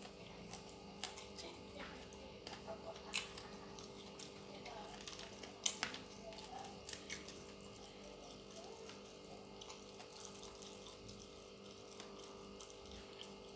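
Quiet eating sounds: scattered soft wet clicks from chewing and from fingers pulling flesh off a fried gourami, with one sharper click about six seconds in.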